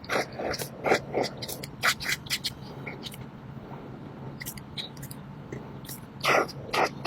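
A coloring tool scratching on a drawing surface in short, irregular strokes, with louder strokes about a second and two seconds in and a longer one near the end.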